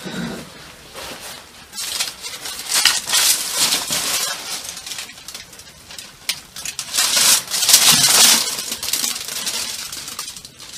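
Aluminium foil crinkling and rustling as it is pulled back off a baking tray, in two long crackly stretches, the second the louder.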